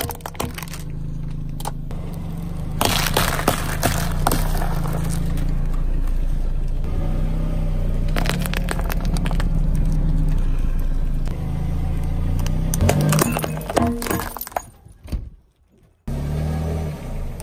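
A car tyre rolls slowly over packaged sweets, plastic candy tubes and then wrapped chocolate bars, crushing them with many sharp crackles and crunches of plastic and wrapper. Under it the car's engine runs with a steady low hum. The sound drops away almost to nothing shortly before the end.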